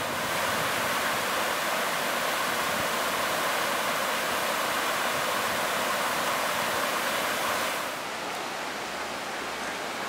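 Steady rushing noise of splashing water. About eight seconds in it drops a little in level and loses some of its hiss.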